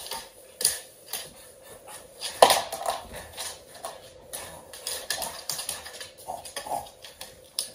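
A chocolate Labrador's claws clicking and scrabbling on a laminate floor during rough play, with scuffling and rustling and a sharp knock about two and a half seconds in.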